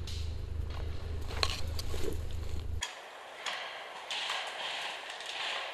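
Faint scattered clicks and rustling of movement in forest undergrowth, over a steady low hum that stops abruptly about three seconds in, leaving a quieter faint hiss.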